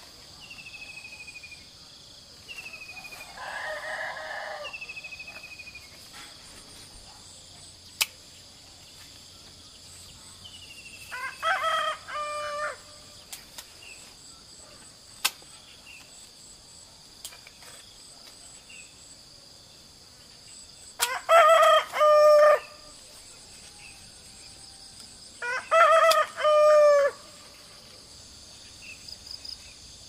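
A rooster crowing three times, each crow about a second and a half long, over a steady high chorus of insects. A few short falling bird chirps and sharp single clicks come in between.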